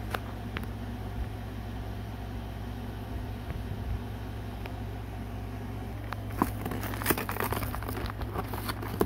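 A steady low hum throughout; from about six seconds in, packaging being handled and opened, with a run of sharp clicks and crackles.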